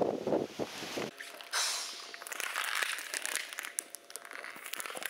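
About a second of wind rumbling on the microphone, which stops abruptly at a cut. Then a brief hiss and dense crackling and rustling handling noise close to the microphone.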